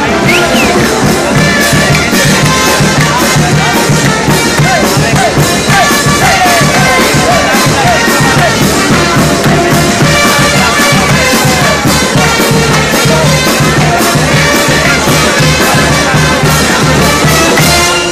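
Loud music with a steady beat, heard over a crowd.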